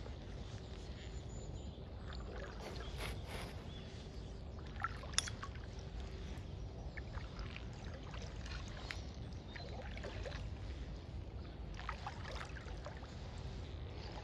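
Kayak paddle strokes in calm water: dips, drips and small splashes over a steady low rumble, with a couple of sharp clicks about five seconds in.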